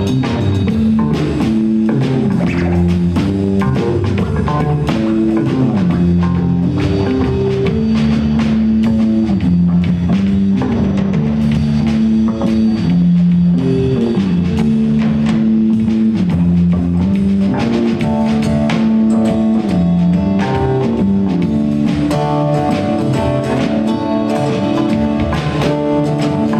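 Live band playing an instrumental passage: bass lines over a drum kit. A higher melodic part comes in about two-thirds of the way through.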